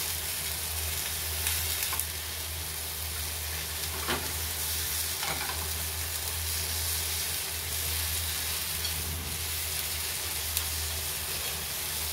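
Food sizzling steadily in a frying pan, over a low steady hum, with a few faint light taps.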